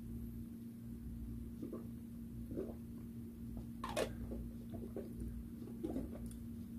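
Quiet room with a steady low hum, broken by a few soft taps and clicks of hands handling food and tableware on a plate, the sharpest click about four seconds in.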